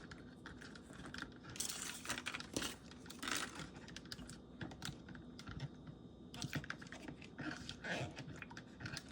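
Plastic toy egg being rinsed under running water and handled: two spells of splashing water, with many light clicks and taps of plastic against hands and a sink.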